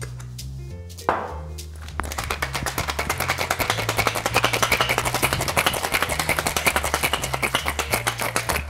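Ice rattling inside a stainless steel cocktail shaker shaken hard, a fast even rattle from about two seconds in until the end. A short knock comes about a second in as the shaker is capped. Background music plays throughout.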